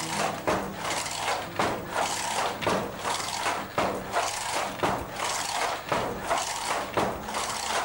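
Wooden fly-shuttle handloom being worked by hand: the shuttle jerked across by its cord and the batten beaten against the cloth, a steady rhythm of wooden knocks and clacks about twice a second.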